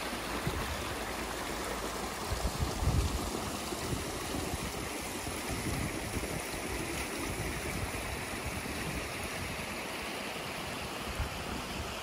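Small mountain stream rushing steadily over rocks and a small drop beneath a plank footbridge. A few low thumps come about two and a half to three seconds in.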